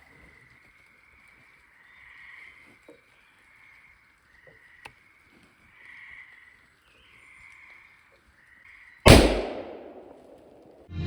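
Frogs calling faintly and steadily, then about nine seconds in a single loud rifle shot at a black bear, with an echo trailing off over a second or so.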